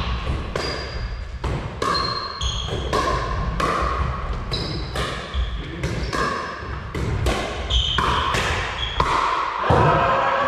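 Pickleball rally: paddles hitting the plastic ball back and forth and the ball bouncing on a wooden gym floor, a rapid run of sharp hits about every half second. Short high squeaks from sneakers on the floor come between the hits, and voices come in near the end as the rally stops.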